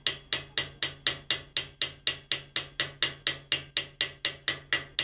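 Light, steady hammer taps, about four a second, on the end of a hand-forged coil-spring engraving chisel as it cuts into a piece of metal held in a vise, raising a small curl. Each tap rings briefly.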